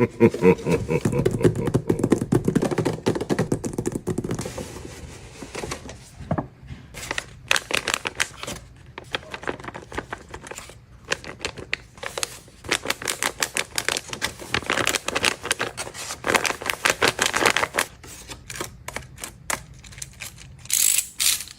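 Paper and packaging being handled: rapid, irregular clicking, tapping and rustling, in short bursts.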